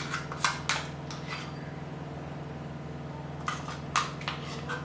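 Metal spoon scraping and clinking against a small stainless-steel cup as thick ground masala paste is scooped out, in a few short clusters near the start and again near the end. A steady low hum runs underneath.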